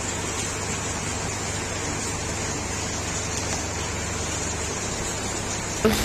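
Steady rushing noise of water, like heavy rain or floodwater, with a low hum underneath; it changes abruptly to a louder sound just before the end.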